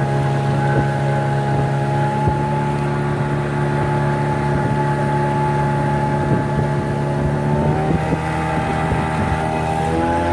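Small boat's motor running steadily under way, its pitch stepping up twice, about eight seconds in and again near the end, as the throttle is opened.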